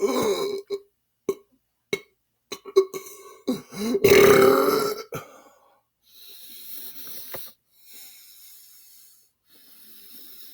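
A man belching several times: a burp at the start, a few short ones, then the longest and loudest burp about four seconds in. After that come three quieter breathy hisses.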